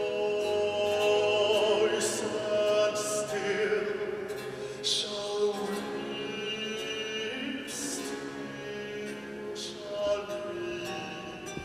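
A baritone singing a Baroque vocal piece in operatic style, with sustained, vibrato-laden notes, over harpsichord accompaniment.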